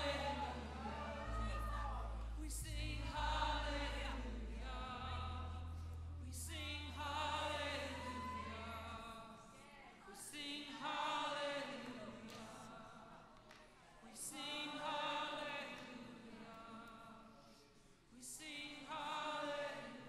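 Live worship music: voices singing slow, held phrases over a low steady tone underneath, which drops out about nine seconds in, leaving the voices alone and softer.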